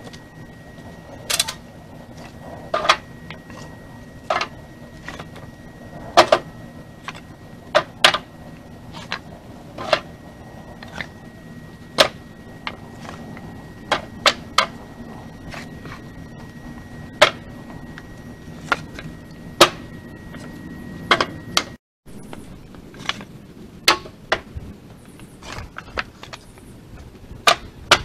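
Slab wood and board offcuts tossed one at a time into the cargo bed of a utility vehicle: irregular sharp wooden clacks and knocks, one every second or two.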